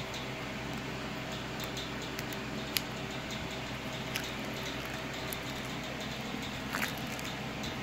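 Small handling noises of a cardboard phone box and a small serrated knife: a few sharp clicks and light rustles, about three in all, over a steady background hum and hiss.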